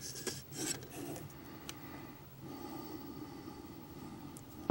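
Faint rubbing and handling noise from hands working a thin wire and a small LED light board on a cutting mat, with a few light clicks in the first second.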